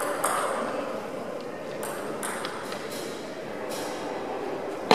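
Table tennis ball clicking sharply off the table and paddles, several hollow pocks spaced unevenly, the loudest hit near the end, each ringing on in a large echoing hall.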